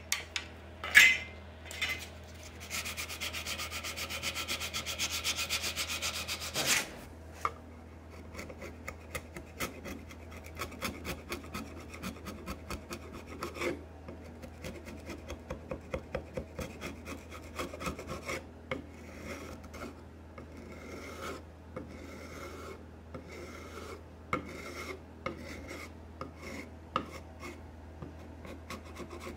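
Dowel plugs in a wooden rocking-chair rail being trimmed flush: a knock about a second in, a few seconds of quick saw strokes, then a wide chisel blade scraping and paring the end grain of the dowels in short, repeated strokes.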